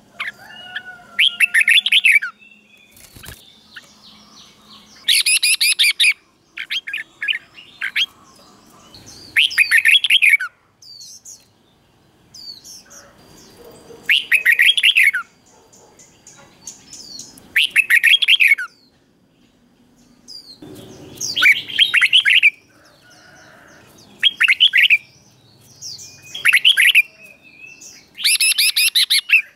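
Red-whiskered bulbul singing: short, bright phrases of quick notes, repeated every three to four seconds with pauses between.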